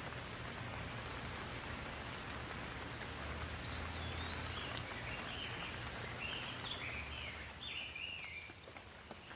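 Steady rain falling, an even hiss, easing slightly near the end. A bird chirps a series of short calls through the middle.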